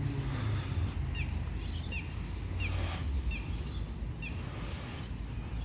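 A bird chirping over and over, a short note about every two-thirds of a second, over a steady low outdoor rumble.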